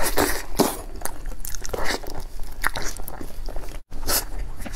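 Close-miked eating of soft durian flesh: wet bites and chewing with many short, sharp mouth clicks and smacks. The sound drops out completely for a moment a little before the end.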